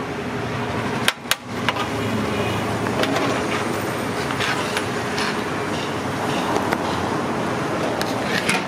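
Steady roadside traffic noise, with a few sharp metal knocks and clinks from a steel serving spoon against a large metal pot as rice is scooped out; the loudest knocks come about a second in.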